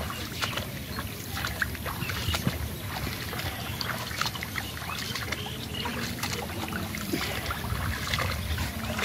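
Bare feet wading through shallow muddy floodwater, sloshing and splashing with each step in an irregular run of splashes.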